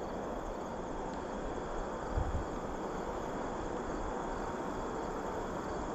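Steady outdoor background hiss with faint high steady tones, and a brief low buffet of wind on the microphone about two seconds in.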